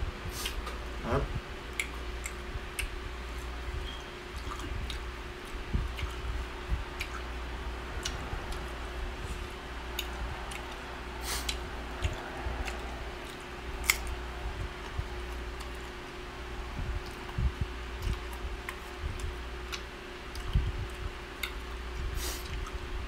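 A person chewing and eating green mango with shrimp paste by hand: wet mouth sounds and scattered small clicks, over a steady low hum.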